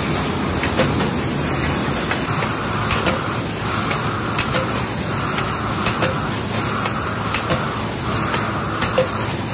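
Glass-pressing machine running in a glassworks: a steady mechanical din with a sharp knock about every one and a half seconds and, from about two seconds in, a hiss that comes and goes about once a second.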